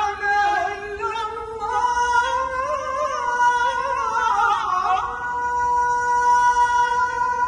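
A muezzin chanting the evening adhan, the Islamic call to prayer, into a microphone over loudspeakers: one male voice in long, ornamented phrases, ending on a single long held note.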